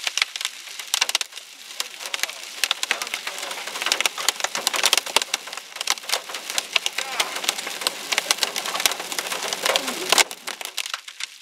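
Hailstones mixed with rain hammering on a car's roof and windshield, heard from inside the car: a dense, irregular clatter of sharp hits over a steady rush. The rush drops away suddenly about ten seconds in while the hits keep coming.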